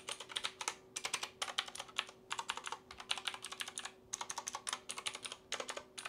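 Clicky blue mechanical switches on an E-YOOSO Z737 keyboard being pressed in quick runs of sharp clicks with short pauses between. It is the loud click typical of blue switches.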